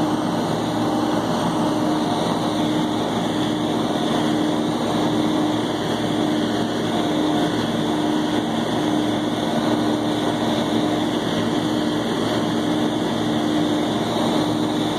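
John Deere 4430 tractor's turbocharged six-cylinder diesel pulling under steady load, together with a John Deere forage harvester chopping and blowing corn silage. A steady drone with a constant hum and no change in speed.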